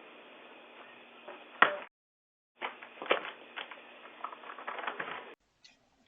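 Faint hiss from a Ring doorbell camera's microphone, with a few soft clicks and knocks. The sound drops out briefly about two seconds in.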